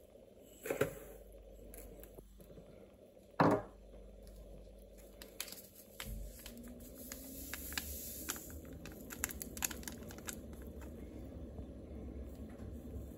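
Two sharp knocks, about a second in and again near three and a half seconds. From about six seconds in, a paper yeast sachet is handled and torn open, crinkling with many small crackles.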